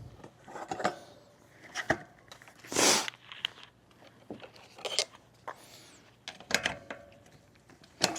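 Scattered clicks and knocks of a bicycle wheel being handled and set on a scale, with a short rushing rustle about three seconds in.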